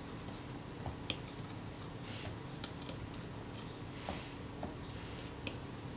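A handful of faint, sharp little clicks and light scraping as the metal front assembly of a Kodak Retina camera is worked by hand down onto the camera body.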